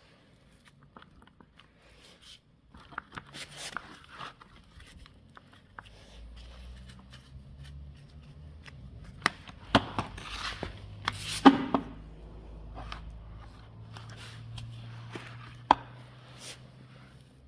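Workshop handling sounds: scattered sharp clicks and knocks, the loudest near the middle and one late on, over a low steady hum that starts about six seconds in.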